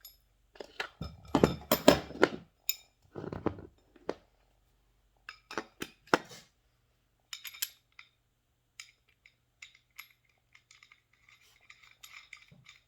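Metal parts clinking and knocking as a wheel, washer and nut are fitted onto a steel axle, in several clusters of strikes with the loudest about two seconds in, then lighter clicks near the end.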